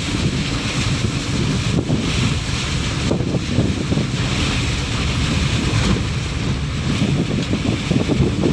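Wind buffeting the microphone over the wash of surf breaking on a beach, the hiss of the waves swelling and fading.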